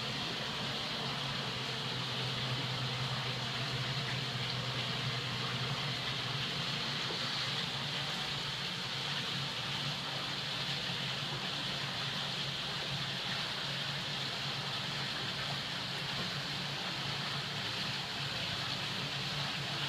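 Aquarium water circulation running steadily: a continuous rush of moving water with a low hum underneath.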